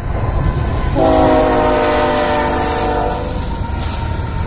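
Freight train hauled by diesel locomotives passing close by with a steady low rumble. About a second in, the lead locomotive sounds one chord on its multi-chime air horn for about two seconds, the pitch sagging slightly as it goes by.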